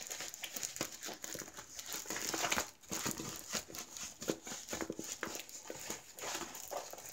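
Plastic film and canvas of a rolled diamond painting crinkling as they are unrolled and handled: a run of irregular crackles and rustles.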